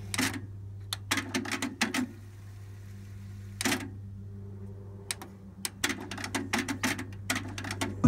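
Clicks from a Yamaha KX-380 cassette deck's transport buttons and mechanism as it is stopped, wound and cued: one sharp click just after the start, a cluster about a second in, a single click near four seconds, then a quick run of clicks over the last three seconds, with a steady low hum underneath.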